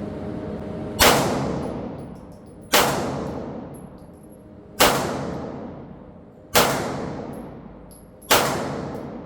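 Five single 9mm shots from a Foxtrot Mike FM9 AR-style pistol, fired at an even slow pace about two seconds apart. Each shot rings out with a long echoing tail.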